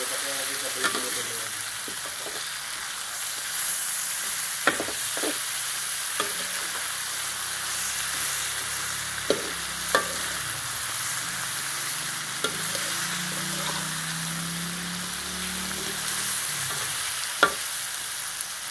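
Whole selayang (scad) fish frying in chilli paste in a wok, a steady sizzle. The spatula knocks and scrapes sharply against the wok a few times.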